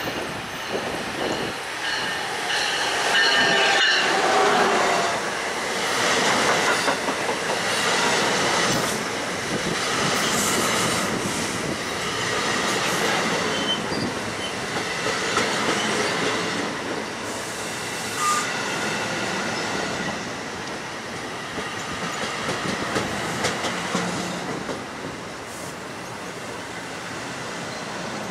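New Jersey Transit bilevel push-pull train, led by a locomotive, passing close by: a steady rumble and hiss of steel wheels on rail, with clicks over the rail joints. Thin, high wheel squeals sound as the locomotive goes by, a few seconds in.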